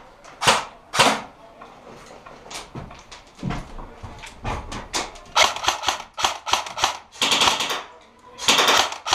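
Airsoft guns firing: a few single shots early on, then quicker shooting from about halfway, with two short rapid bursts near the end.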